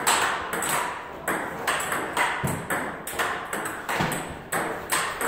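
Table tennis ball being hit back and forth in a steady rally, sharp clicks of ball on paddle and table about two to three a second, each with a short echo.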